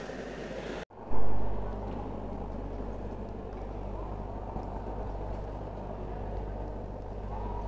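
Steady ambient noise of a large stone church interior with a low rumble. About a second in it cuts out abruptly and comes back with a brief loud swell that fades within half a second.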